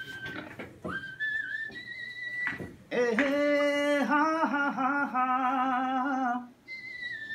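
A tune whistled in a few held notes that step upward, then a man's voice singing held notes of a melody for about three and a half seconds, with a short whistled note again near the end.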